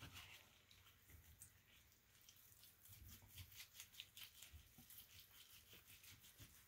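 Near silence, with faint, scattered soft clicks of gloved hands handling a sliced prime rib roast.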